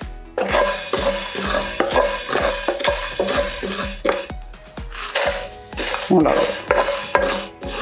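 A wooden spatula stirring and scraping whole spices (coriander seeds and black peppercorns, with dried red chillies) around a dry nonstick frying pan: repeated rasping strokes with the seeds rattling, as the spices are dry-roasted over the flame.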